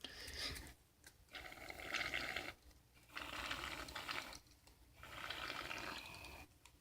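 Aerosol shaving cream sprayed from the can in four short bursts, each a hiss lasting about a second with brief pauses between.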